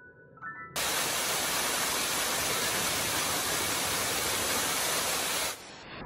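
Loud, steady rush of water pouring over rocks in a small mountain waterfall and stream, close to the microphone. It cuts in suddenly under a second in and cuts off just before the end. Faint background music plays at the start and the end.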